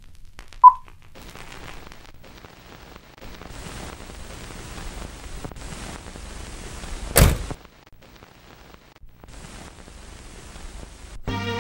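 A film-leader countdown beep, one short high tone about half a second in and the loudest sound here, followed by the crackling hiss of old film sound. A single loud thump comes about seven seconds in, and music begins just before the end.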